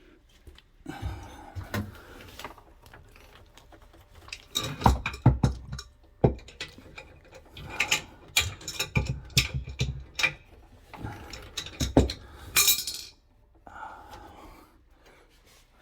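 Metal pipe fitting and strainer being handled and unscrewed by hand: irregular clinks, knocks and rattles of metal on metal, with a brief hiss about three-quarters of the way through.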